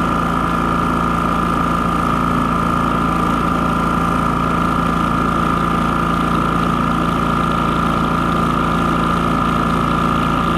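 WEN 3800-watt inverter generator running at a steady engine speed, its engine note holding constant with a strong steady high hum on top.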